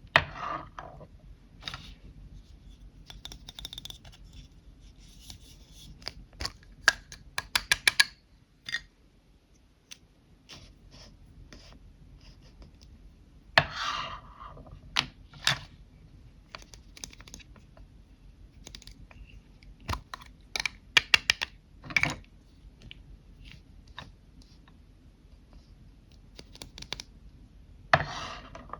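Lipstick tubes and cases being handled close to the microphone: sharp clicks and taps of plastic caps and cases, with a quick run of clicks about seven seconds in, and short scratchy rubbing sounds in between.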